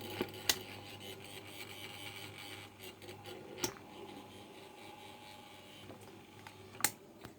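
Okayama OK1230 stand fan running with a steady low buzzing hum that slowly fades, broken by a few sharp clicks; the buzzing and rattling is the fault the owner is showing.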